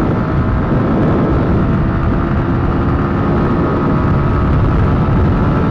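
Mondial 125 KT motorcycle's single-cylinder engine running steadily, under a heavy rumble of wind on the microphone.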